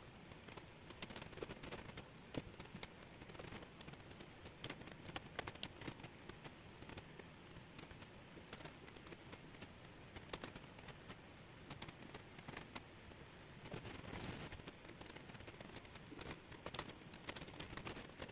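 Thin wooden jigsaw puzzle pieces clicking and rustling as hands slide and sort them across a table: a dense, irregular run of light clicks and taps.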